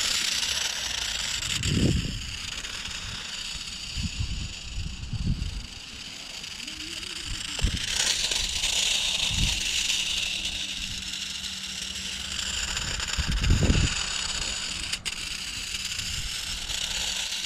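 Small RC car with brushless motors and mecanum wheels driving on rough concrete: a steady hiss and rattle, with a few short low rumbles.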